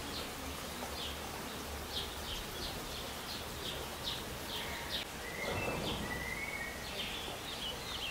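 Small birds chirping: short, high chirps about twice a second, coming faster near the end, with a longer whistled note about five and a half seconds in.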